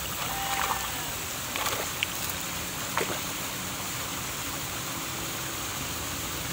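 Steady rushing hiss of running water, with a few faint short clicks in the first three seconds.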